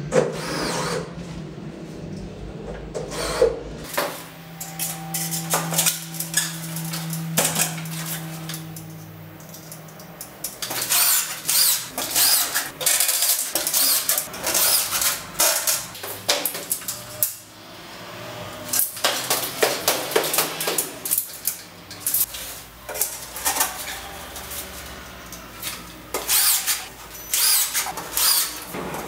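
Cordless drill-driver driving screws through gypsum-board strips into the ceiling frame: one longer steady run about four seconds in, then many short bursts mixed with knocks and scrapes as the boards are handled.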